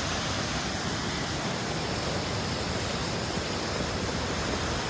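Steady rush of flowing water, an even noise that holds one level throughout.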